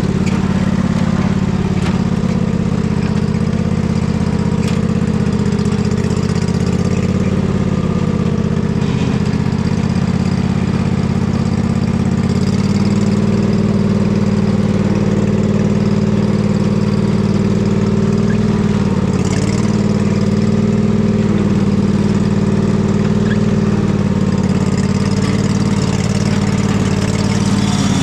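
Husqvarna riding mower's engine running steadily, its pitch dipping and coming back up a few times as it is driven.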